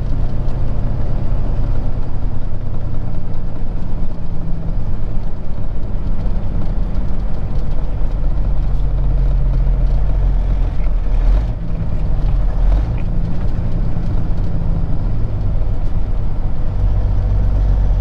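Peterbilt 379 semi truck's diesel engine running steadily at highway speed, heard from inside the cab with road and wind noise; the engine note dips briefly about eleven seconds in.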